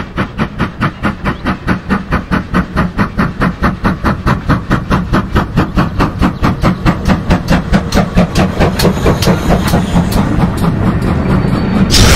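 GWR Modified Hall 4-6-0 steam locomotive No. 6990 working steam as it approaches and passes: a fast, even beat of exhaust chuffs over the low rumble of the train.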